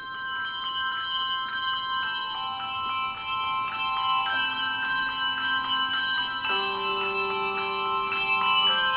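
Handbell choir playing the opening bars of a piece: several high bells struck together and ringing on, with lower bells joining about four seconds in and again past six seconds.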